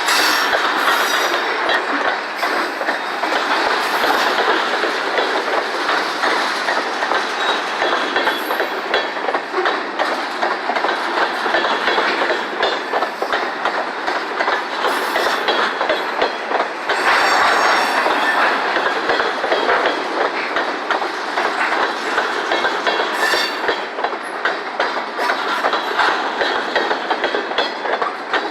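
Freight train cars rolling past, steel wheels clicking and clattering steadily over the rail joints, with some wheel squeal.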